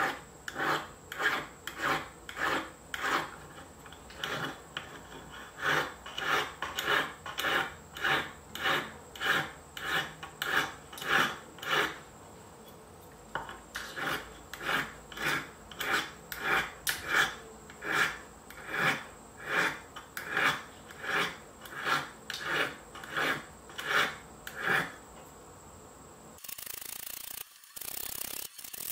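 Small hand file scraping back and forth across the tip of a silver spoon, in regular strokes of about two a second, with a short pause about halfway through. Near the end the strokes stop and a steady hiss takes over.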